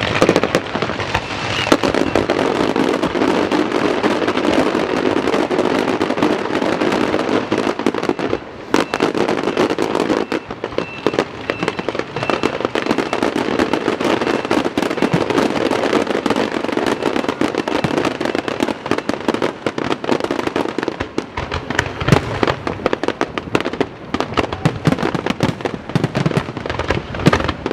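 Fireworks display: a dense, continuous crackle of rapid bangs and pops, easing briefly about eight seconds in.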